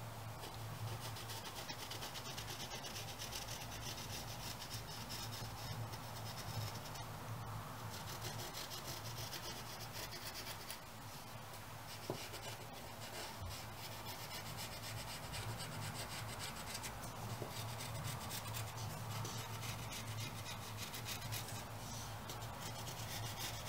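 Pencil scratching on cardboard as it traces around the edge of a paper stencil, in many short strokes, over a steady low hum.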